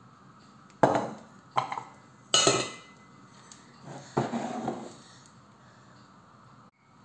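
Kitchenware being handled on a counter: four separate clattering knocks, the loudest about two and a half seconds in with a short metallic ring, as a stainless-steel canister is set down. A longer, softer clatter follows a little after four seconds.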